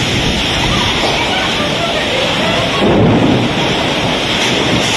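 Heavy rainstorm with strong wind: a loud, steady rush of rain and wind that swells briefly about three seconds in.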